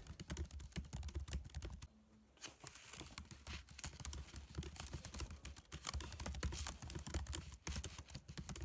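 Fast typing on a computer keyboard: a rapid, uneven run of key clicks, with a brief pause about two seconds in.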